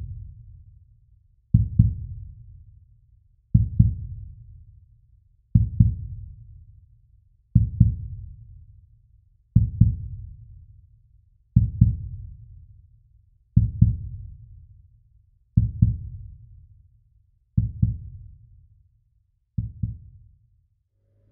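Heartbeat-style sound effect: low double thumps, one pair about every two seconds, each fading away, the last ones fainter.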